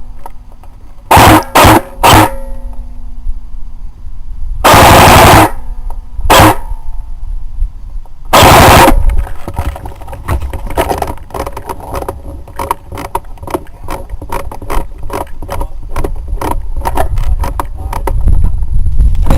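Airsoft gunfire: several loud short bursts of fire close to the microphone, the longest lasting under a second, followed by a long run of rapid, scattered shot clicks.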